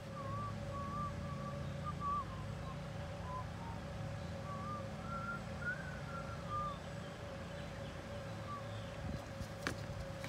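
A steady low motor-like hum with a steady higher tone over it, and short wavering whistle-like notes through the first seven seconds or so.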